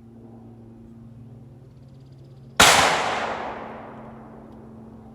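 A single rifle shot about halfway through: one sharp crack followed by a long echoing decay.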